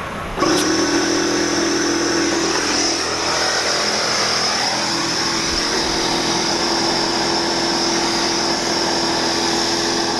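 Electric air compressor kicks on about half a second in and runs steadily, a motor hum with a high hiss over it, as air is put into a freshly plugged tire to see whether the plug holds.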